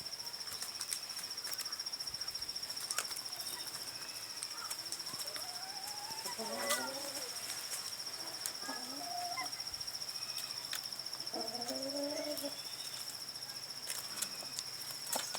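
A high, steady insect trill, with a few short chicken calls in the middle.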